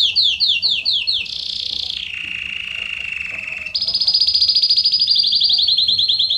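Belgian canary singing: quick downward-sweeping notes, about eight a second, give way about a second in to a buzzy high trill that drops to a lower buzzy roll. A louder, very fast high trill comes in about four seconds in and slows back into sweeping notes near the end.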